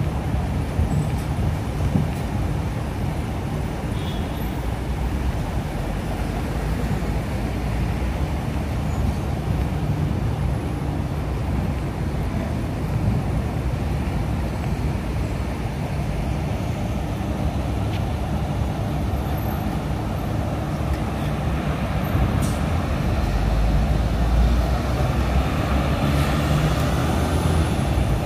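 Steady road traffic: cars idling and passing on a city street. Near the end a vehicle passing close makes it louder and deeper.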